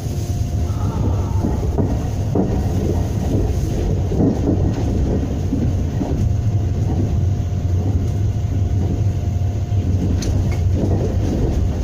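Passenger train running at speed, heard from inside the carriage: a steady low rumble of wheels on rails with a faint steady tone above it.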